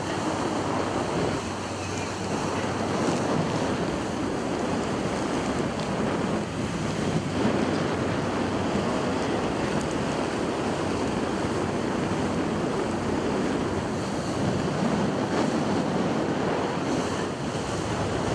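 Steady rush of water and wind from the open deck of a moving sightseeing boat, with wind buffeting the microphone.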